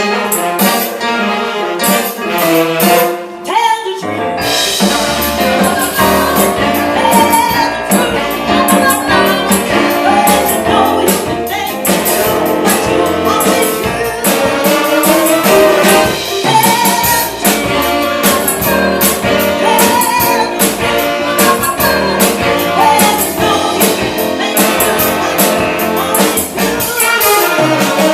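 Live band playing a song at a sound check, starting just after a count-in; the full band with bass comes in about four seconds in.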